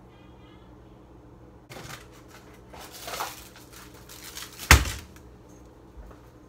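Rustling and clattering of things being handled at a kitchen counter, with one sharp knock about three-quarters of the way through, over a steady low hum.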